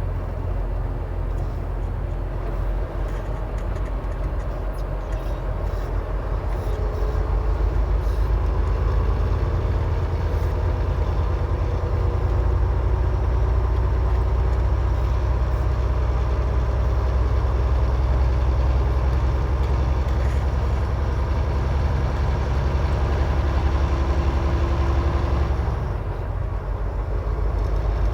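Semi-truck's diesel engine and road noise heard from inside the cab while driving: a steady low drone, a little louder from about a quarter of the way in, easing briefly near the end.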